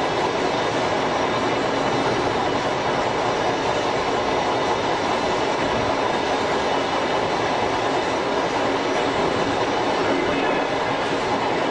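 Tobu 5700 series electric train with nose-suspended traction motors running at steady speed, heard from the cab: an even running noise of motors and wheels on the rails, without a break or change.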